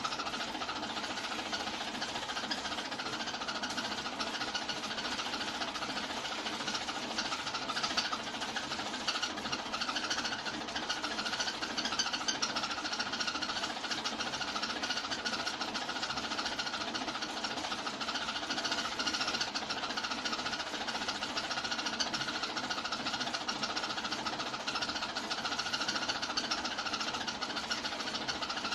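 Hand-cranked 1908 35mm film projector running, its mechanism making a fast, even clatter that holds steady throughout.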